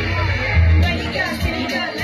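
Live stage music played loud through a concert sound system: a bass-heavy beat that runs on without a break.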